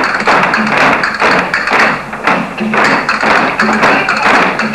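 Many dancers' heeled shoes stamping and tapping on a wooden floor in a flamenco-style dance, a loud, dense, overlapping clatter, with flamenco music underneath.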